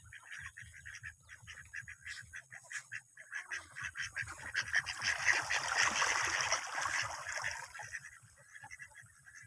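A flock of domestic ducks quacking and chattering in short, repeated calls. From about three seconds in to about eight seconds there is a louder, noisier stretch of overlapping sound.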